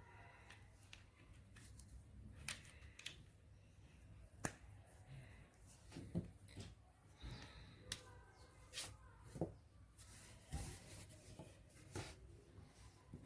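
Scattered light clicks and taps at irregular intervals, a few each second at most, over a faint low hum.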